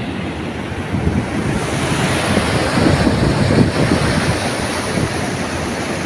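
Steady rushing of water pouring over a wide concrete weir spillway and churning below it, with wind buffeting the microphone.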